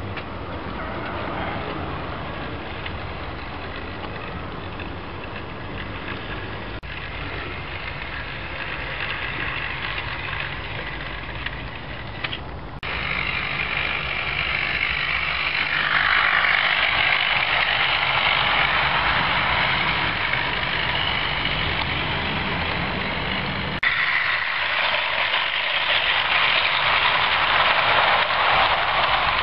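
Model train running along a garden railway track: a steady rolling rumble with a hiss over it, broken by abrupt cuts about 13 and 24 seconds in.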